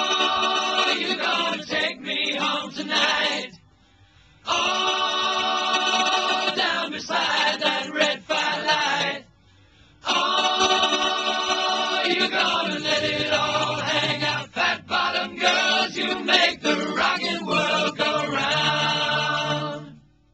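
Music of many voices singing together without instruments, in held chords, in three long phrases with short pauses about four and nine and a half seconds in.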